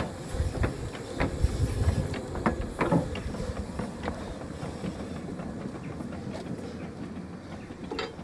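Small narrow-gauge steam locomotive moving slowly off a turntable, its wheels clicking and clanking over the rail joints over a low rumble, with a faint hiss of steam. A sharp metallic click near the end.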